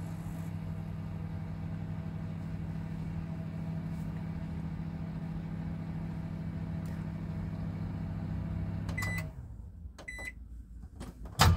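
Microwave oven running from a 230-volt inverter with a steady hum, which cuts off about nine seconds in. Two short beeps follow, then a sharp click near the end.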